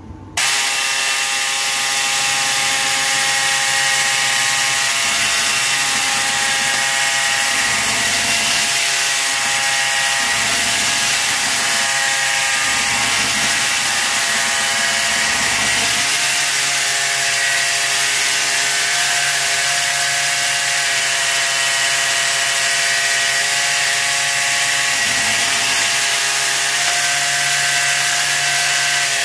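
Electric hand mixer switched on and running steadily, its twin beaters whisking cake batter in a glass bowl; a steady motor whine whose pitch drops slightly about halfway through.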